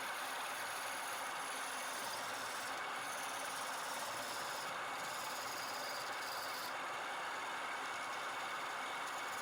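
Wood lathe running steadily, a constant mechanical hum and whirr.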